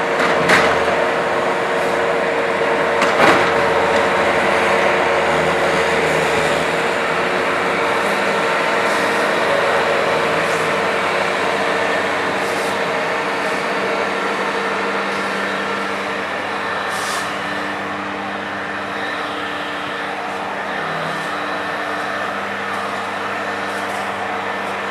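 Skid steer loader engine running steadily, with two sharp knocks in the first few seconds and a change in its pitch about halfway through.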